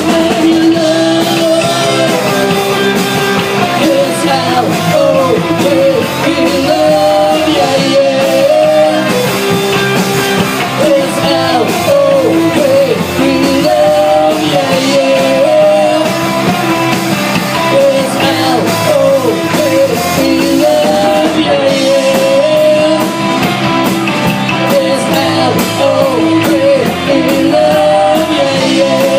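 Live rock band playing: electric guitars, bass guitar and drum kit, with a wavering lead melody line over them.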